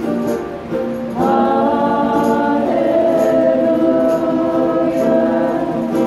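Gospel worship music: voices singing a slow hymn over guitar accompaniment, with a light, even percussion tick. The voices come in about a second in and hold one long note through the middle.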